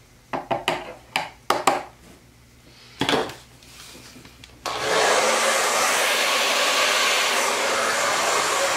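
A few sharp clicks and knocks, then a handheld hair dryer switched on about four and a half seconds in and blowing steadily, pushing wet acrylic paint across the canvas.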